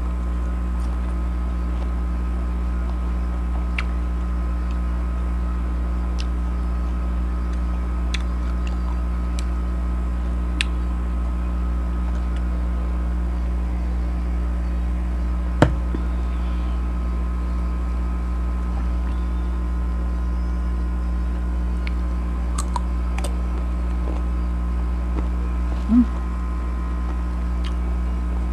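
Air conditioner running with a steady hum: a strong low drone with several steady tones above it. A few faint ticks and one sharp click about halfway through sound over it.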